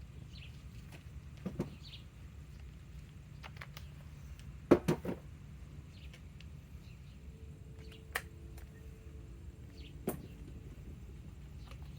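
A few scattered knocks and clicks of tools being handled and set against metal, the loudest a quick double knock about five seconds in, over a low steady hum. The impact wrench is not running.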